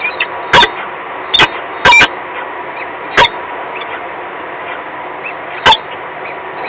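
Peregrine falcon giving about five short, harsh, loud calls at uneven intervals over a steady background hiss.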